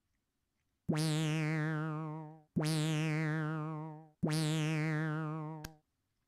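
Three identical synthesizer notes, each held about a second and a half with a warbling vibrato before fading out, a comic sound effect laid over the footage. A short click comes near the end of the third note.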